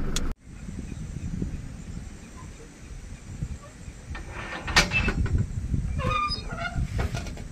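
Steel gate latch clanking once, sharply, about five seconds in as a man works it by hand, over a low steady rumble. A few short high-pitched sounds follow about a second later.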